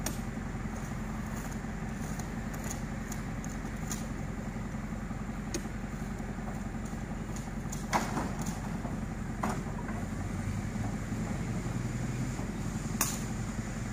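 Steady low hum of a vehicle engine idling, with a few sharp knocks, the loudest about eight seconds in and another near the end.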